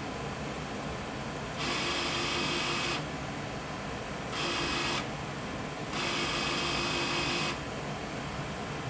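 Harmonic Drive AC servo motor jogging in three short moves, whining while it turns: about a second and a half in for over a second, a brief move in the middle, then another of about a second and a half, over the steady hum of the power supply cabinet.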